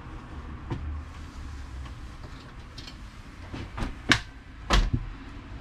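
Hollow knocks and bumps of a large plastic motorhome rear bumper section being handled through the camper door, with a few light knocks and then two loud ones in the second half, over a low steady rumble.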